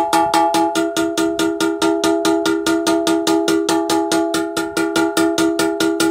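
Rapid, even metal-on-metal tapping on a cracked Kohler Courage engine block, about seven strikes a second, each with a bright metallic ring. The cracked section is being knocked back into line to close the crack before it is sealed with JB Weld.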